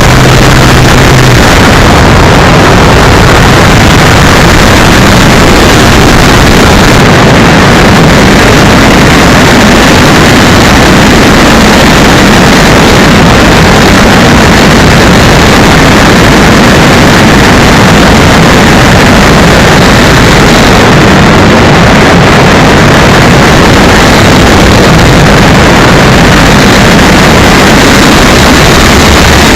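Onboard sound of an RC Cessna 182's electric motor and 11x9 propeller in flight, with air rushing past a small keychain camera. A constant, loud noise that stays the same throughout.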